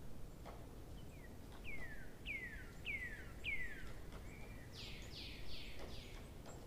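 A bird calling: about five quick whistled notes, each sliding down in pitch, then four harsher, broader notes just after the middle, over a faint low background noise with a few soft clicks.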